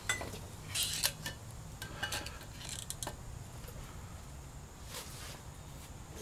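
Sharp metal clinks and clanks as a heavy steel bar is set down and shifted on aluminium parts held in locking C-clamps. Several knocks come in the first three seconds, with a lighter one near the end.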